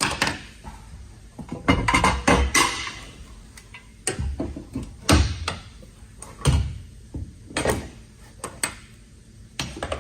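A series of irregular metal knocks and clunks from handling and fitting the removable anchor roller hardware, some with a short ring after them.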